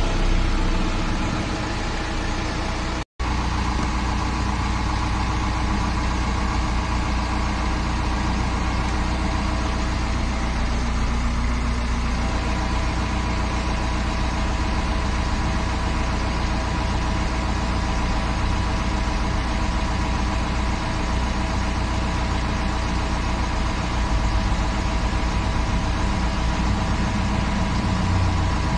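BMW 320d's N47 four-cylinder diesel engine, heard from inside the cabin, settling into a steady idle just after a start. There is one momentary break in the sound about three seconds in.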